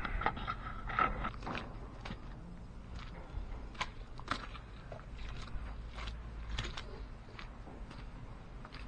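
Faint, irregular small clicks and crunches over a steady low wind rumble.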